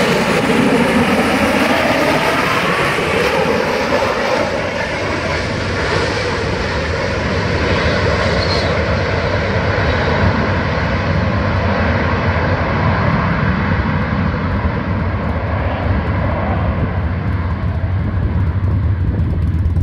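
Marine AV-8B Harrier II jet running loud and steady in slow, gear-down flight. Its sound gradually loses its high hiss as the jet moves away.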